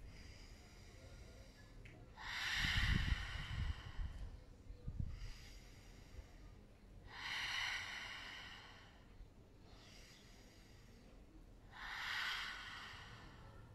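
A woman taking three deep breaths, each ending in a long, audible exhale through the mouth lasting one to two seconds, about four to five seconds apart. Low rumbling thumps come with the first exhale.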